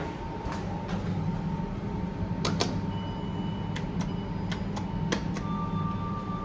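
Buttons on a Schindler freight lift's stainless-steel car operating panel clicking as they are pressed, a dozen or so sharp clicks with the loudest pair about two and a half seconds in, over a steady low hum. A thin high beep sounds for about a second near the middle, and a steady lower tone starts near the end.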